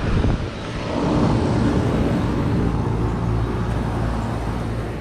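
Tempstar central air-conditioner condensing unit running steadily: the low hum of its replacement scroll compressor under the even whoosh of the condenser fan.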